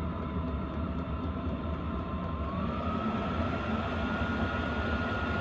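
Portable 5 kW diesel air heater running warm on kerosene: a steady hum and blower rush with a thin whine that rises in pitch about halfway through and then holds.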